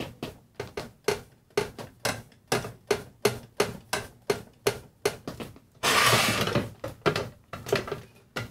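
Loose metal part rattling and knocking inside a 1960 General Electric Musaphonic clock radio's cabinet as it is tilted back and forth, about three knocks a second, with a longer scraping rush of noise about six seconds in. The loose part is the snooze button's metal bracket, broken away from its plastic mount and flopping around in the chassis.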